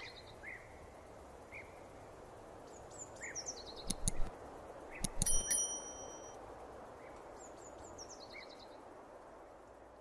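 A subscribe-button sound effect: mouse clicks about four and five seconds in, then a bright bell-like ding. Underneath, a faint outdoor background with birds chirping now and then.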